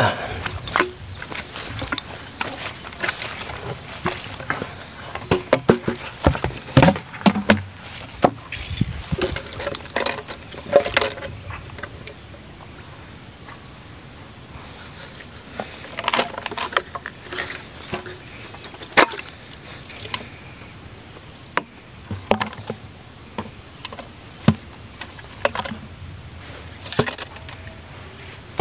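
Irregular knocks, clatters and rustles from handling a PVC-pipe eel trap and a plastic bucket while stepping over dry straw. A steady high insect drone runs underneath.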